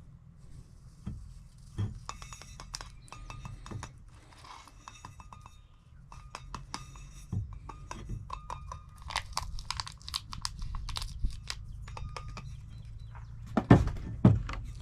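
Rapid small clicks, taps and scrapes of a coffee cup and its gear being handled as coffee is fixed, over a steady low rumble.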